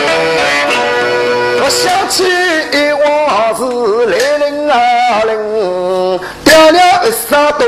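Yao opera (Yuyao regional Chinese opera) aria: held instrumental accompaniment, then, a little under two seconds in, a singer comes in with a wavering, vibrato-laden sung line over the band.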